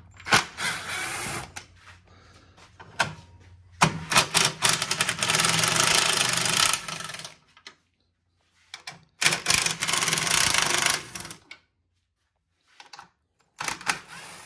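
Ryobi cordless impact tool with a socket hammering out the grille's bolts. It comes in four rattling runs, each lasting from about one and a half to three and a half seconds, with short pauses between them.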